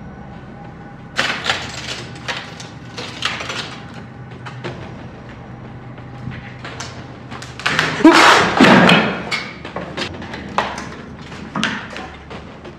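Irregular thumps, knocks and clattering of loose objects, with the loudest burst of banging about eight seconds in.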